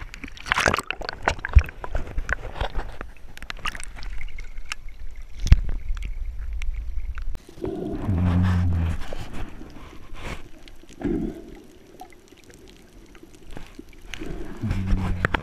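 Water splashing and sloshing, then about halfway through the sound turns muffled as the microphone goes under. A scuba diver's exhaled bubbles rumble from the regulator in bursts about three seconds apart.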